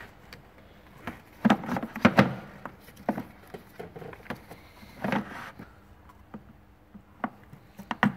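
Hard plastic knocks and clicks with some rustling as a new pleated paper air filter is slid and pressed into its plastic airbox by hand. The loudest knocks fall about one and a half and two seconds in, with more near five seconds and at the end.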